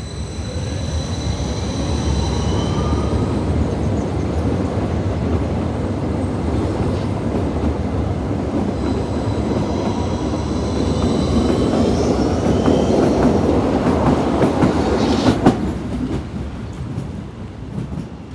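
Yellow Berlin small-profile U-Bahn train pulling out of the station along the platform: a steady rolling rumble with whines from the drive that rise in pitch, and wheels clattering over the rails. A sharp clack comes about fifteen seconds in, then the sound fades as the train leaves.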